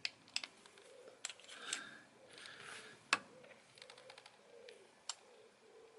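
A click-type torque wrench being set: scattered sharp clicks, one louder knock a little past three seconds in, and a quick run of fine ticks about four seconds in as the handle is turned. A pigeon coos faintly and repeatedly in the background.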